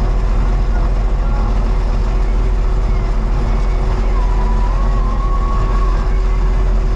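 Cat 259D3 compact track loader's diesel engine running steadily under travel, heard from inside the cab as the machine drives along a gravel driveway.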